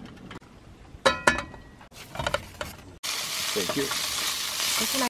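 A few clicks and knocks as a portable butane camp stove is handled. From about three seconds in, sausages sizzle steadily in a frying pan as they are turned with tongs.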